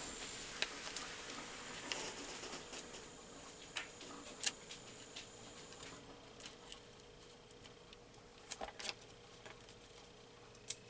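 Small craft scissors snipping paper: scattered soft snips and clicks at irregular moments, with a small cluster near the end.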